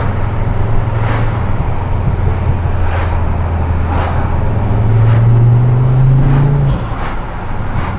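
Mk2 Ford Focus ST's 2.5-litre turbocharged five-cylinder engine droning at low revs while the car is driven, heard from inside the cabin. The drone climbs slowly in pitch and grows louder from about four and a half seconds in, then drops away sharply near seven seconds.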